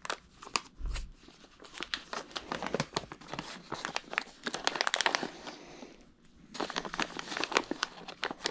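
Hands rummaging through a pile of battery-connector adapters: a dense run of clicks, rattles and rustling, pausing briefly about six seconds in.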